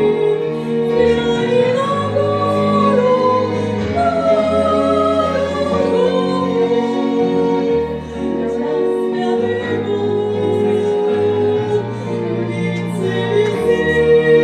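Music with a woman singing long, held notes that slide gently in pitch, over slow-changing low accompaniment.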